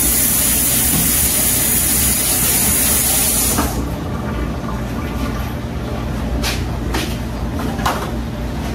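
Kitchen faucet running as hands are rinsed, a steady hiss that cuts off about three and a half seconds in. A few short rustles and clicks follow as paper towels are pulled from the holder.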